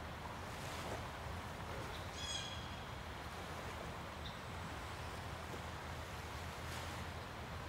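Steady outdoor ambience with a low rumble and hiss, and a single short, high bird call a little over two seconds in.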